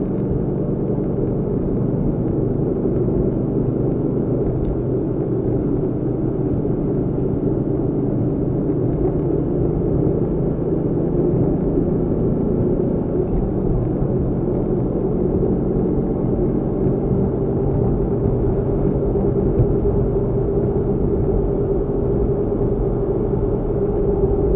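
Car on the move: a steady rumble of engine and road noise.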